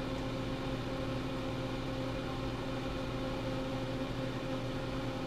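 Steady electrical hum, a constant low drone with a fainter higher tone over light hiss, unchanging throughout.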